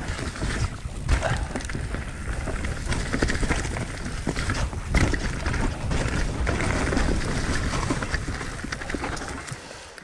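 Mountain bike rolling fast along a leaf-covered dirt trail: tyres running over dry leaves, roots and rocks, with a steady low rumble and many sharp rattles and knocks from the bike on the bumps. It quietens near the end.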